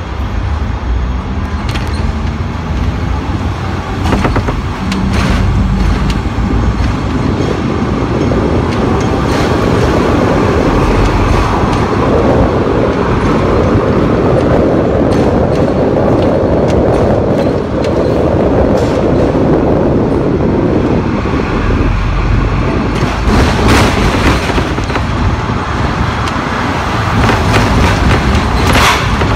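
Hong Kong double-decker electric tram running along street track, heard from on board the upper deck: a steady rumble of steel wheels on rail that swells louder through the middle, with scattered knocks and rattles as the wheels pass over rail joints and crossings.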